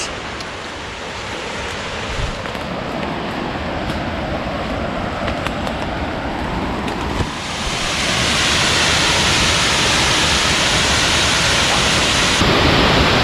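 Steady rush of a rain-swollen mountain creek and its waterfall, which grows louder and brighter about halfway through.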